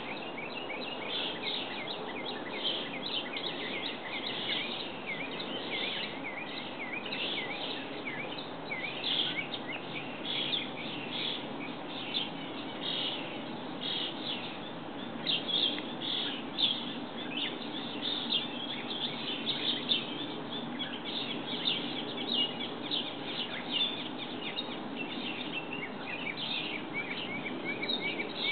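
Small songbirds chirping and twittering, many short rapid calls overlapping throughout, over a steady low background noise.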